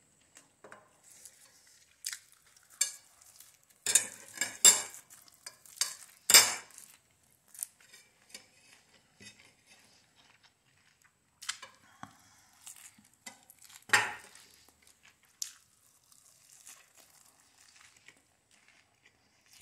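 Scattered eating sounds: a fork clinking against a plate of salad and lettuce being chewed close to the microphone, in short, irregular clicks and crunches.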